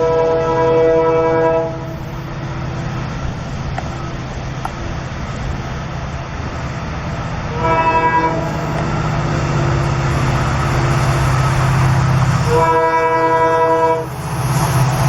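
Indian Railways train horn sounding three blasts, the middle one short, over the steady low rumble of the running train.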